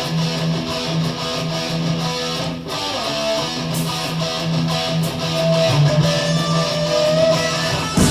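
Electric guitar intro of a 1980s heavy metal song: a low note picked in a steady rhythm with higher notes ringing over it, and a loud hit near the end as the full band comes in.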